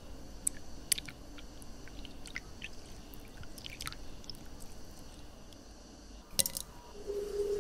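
Ice cubes crackling and popping in a glass as a thin stream of juice pours over them: scattered small clicks over a faint steady pour, with a brief cluster of sharper clicks near the end. A steady hum starts just before the end.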